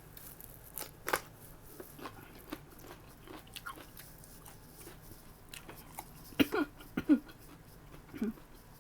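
A person eating close to the microphone: biting and chewing, with scattered wet mouth clicks and smacks. The loudest is a quick cluster of smacks about six to seven seconds in.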